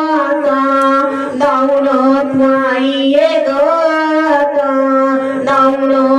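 Gondhal devotional music: one continuous melodic line held without a break over a steady drone, stepping in pitch a few times.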